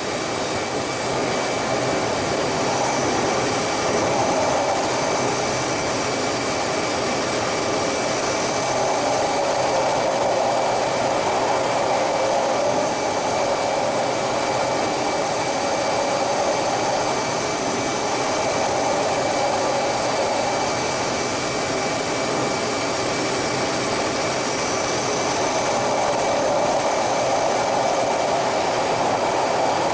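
Inside an F/A-18 Hornet's cockpit, the jet's twin engines and the rushing airflow over the canopy make a steady, loud rushing noise with a thin high whine running through it. It swells and eases slightly a few times as the jet manoeuvres.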